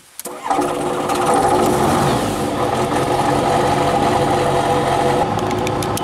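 Rotax 912 engine of a Tanarg ultralight trike started with the key: it catches about half a second in, then runs steadily.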